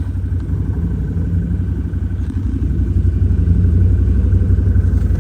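Vehicle engine running with a low, fast pulsing rumble, growing louder about three seconds in.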